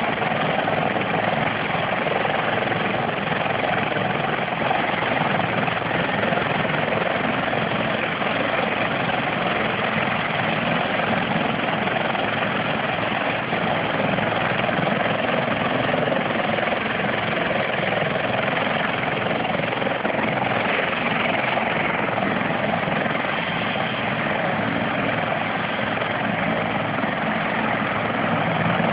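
Turbine helicopter running on the ground with its main rotor turning, a steady noise that holds at one level.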